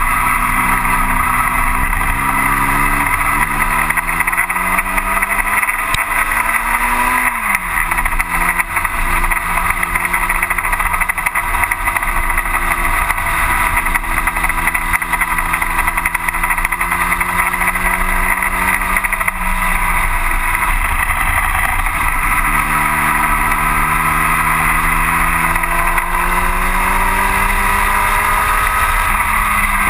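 1960 Cooper T-52 Formula Junior engine heard from the open cockpit at racing speed. Its pitch climbs for about seven seconds, drops sharply at an upshift, holds steady, drops again about twenty seconds in, then climbs once more near the end. A steady rushing noise runs underneath.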